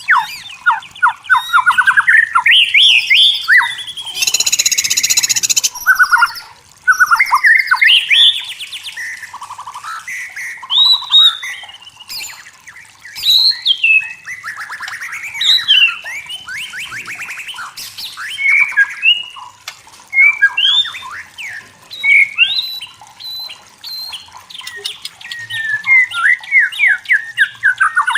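White-rumped shama singing a rapid, varied stream of whistled and fluty phrases, with quick rising and falling notes and trills, and a harsh rasping note about four seconds in.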